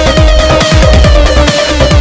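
Loud electronic dance music with a heavy pulsing bass and sustained synth tones.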